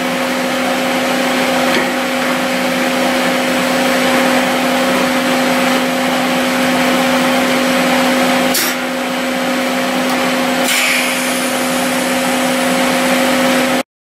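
Air compressor running with a steady hum and hiss. There is a sharp click about eight and a half seconds in, then another about two seconds later followed by a short hiss of air as the filter section is repressurized. The sound cuts off abruptly near the end.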